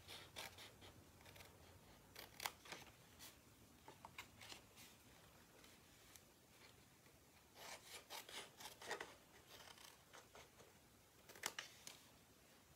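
Small craft scissors snipping through cardstock, making tiny angle cuts. The snips are faint and scattered, with a quick run of them past the middle and another near the end.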